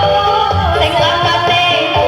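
Loud amplified music with a singing voice carrying the melody over a steady bass line.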